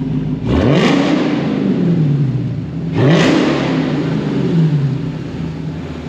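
Dodge Challenger SRT Super Stock's supercharged 6.2-litre Hemi V8 revved twice from idle through its newly fitted electronically valved exhaust, each rev rising sharply in pitch and falling back to a steady idle.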